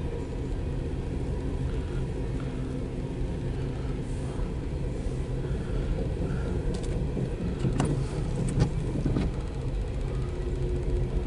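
Empty coal train's cars rolling past, a steady low rumble heard from inside a car, with a few sharp clicks about eight seconds in.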